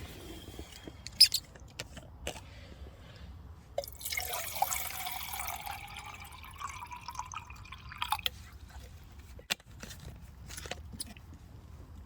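Water poured into a small camping pot for about four seconds, its pitch rising as the pot fills, as tea is being made. A sharp knock about a second in is the loudest sound, and a few clicks and knocks follow the pour.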